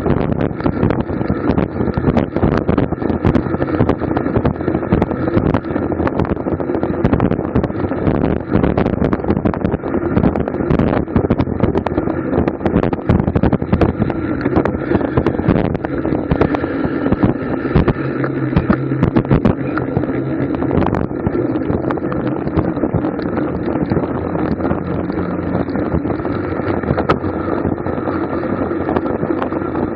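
Wind buffeting the microphone of a camera on a racing bicycle moving at race speed: a steady rushing noise full of small constant pops, with road and drivetrain noise underneath.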